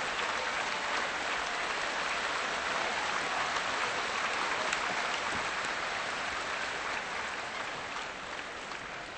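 Spectators applauding in an arena, a steady wash of clapping that dies away near the end.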